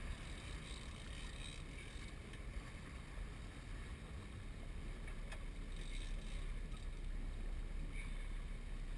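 Steady low rumble of a sportfishing boat at sea, with a faint click about five seconds in.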